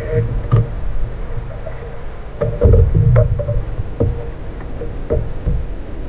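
Wind rumbling on the microphone and water slapping a small wooden boat's hull, with scattered knocks and clicks as a slow-pitch jigging reel is cranked against a hooked fish.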